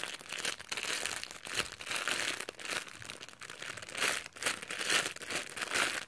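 Thin clear plastic bag crinkling and crackling irregularly as a foam squishy is squeezed and pressed through it by hand.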